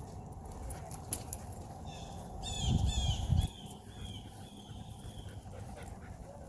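A small bird calling in a quick run of high chirps about two and a half seconds in, trailing off into a thinner, drawn-out note, over a steady low rumble. There is a sharp click about a second in.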